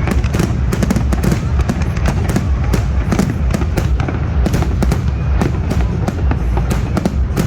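Aerial fireworks going off in a dense barrage: many sharp crackling pops a second over a continuous low rumble of booms.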